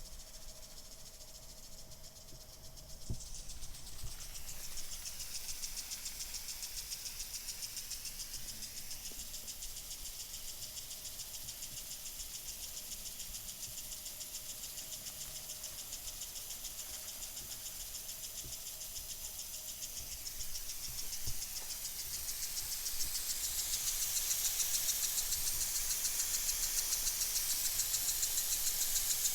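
Well water system running under draw: a steady high hiss of water moving through the pump and lines, with a fast even pulse. It grows louder about three seconds in and again past twenty seconds.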